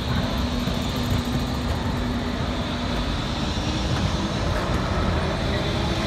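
Crotram TMK 2200 low-floor tram pulling away from a stop and passing close: a steady hum from its traction drive, which steps up slightly in pitch about halfway through as it gathers speed, over the running noise of the wheels on the rails.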